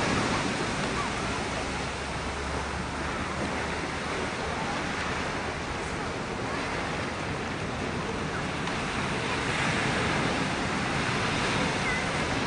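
Ocean surf breaking and washing onto a sandy beach: a steady rush of waves that swells again near the end.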